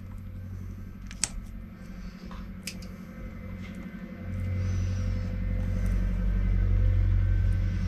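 A low steady rumble that grows louder about four seconds in, with a few sharp clicks in the first half, typical of wire cutters snipping through the scooter's motor wires.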